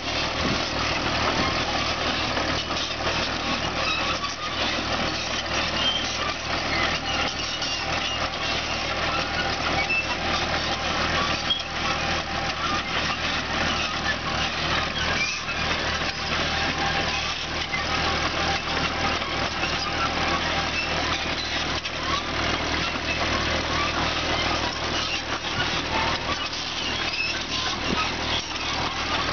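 Mini excavator's diesel engine running steadily as the machine tracks about and grades soil, with scattered clanks and rattles from the tracks and bucket.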